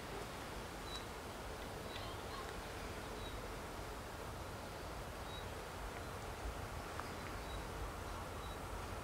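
Quiet open-air ambience: a steady low hiss with a few short, high bird chirps at irregular moments.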